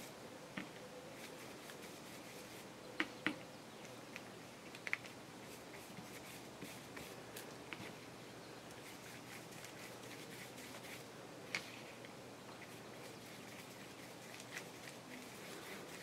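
Faint handling sounds of paper and craft materials on a work table: a few short, sharp taps and clicks scattered over low room hiss.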